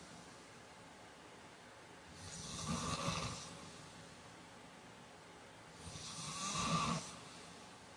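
A man snoring in his sleep: two snores about four seconds apart, each growing louder over a second or so before it stops.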